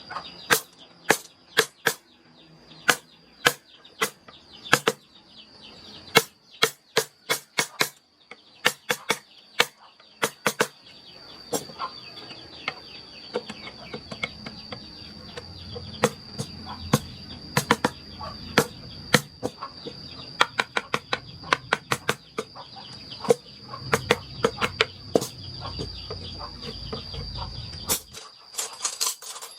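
Hand wood carving: a mallet tapping a carving chisel into wood, giving sharp irregular taps, sometimes in quick runs of several.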